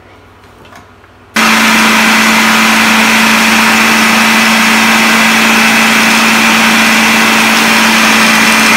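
Food processor switched on about a second and a half in, its motor running at a steady high whine as it grinds biscuits into fine crumbs.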